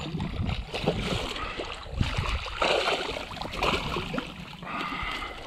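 Water splashing as a hooked redfish thrashes at the surface beside a kayak, in irregular bursts, and is scooped into a landing net.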